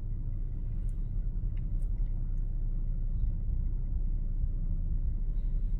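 Steady low rumble inside a car's cabin while the car sits idling in stopped traffic.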